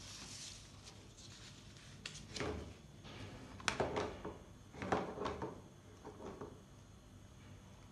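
Gloved hands handling a plastic tub and small items on a tabletop: a few sharp knocks and short scrapes, the loudest about three and a half and five seconds in, with light rustling between them.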